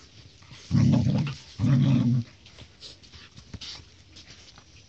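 Puppies play-fighting: two short, loud growls in quick succession about a second in, then softer scattered clicks.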